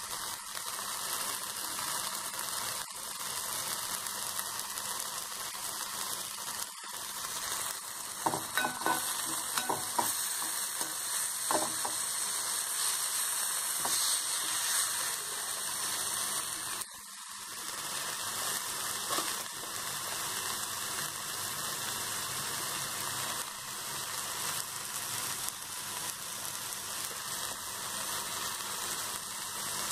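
Chopped onion and tomato sizzling as they fry in a pan, with a steady hiss. A perforated steel skimmer scrapes and clicks against the pan as the mixture is stirred, most busily about a third of the way in.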